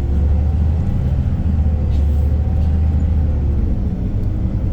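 Iveco Crossway Line 12 bus engine running while the bus is under way, a steady low drone heard from inside the passenger cabin.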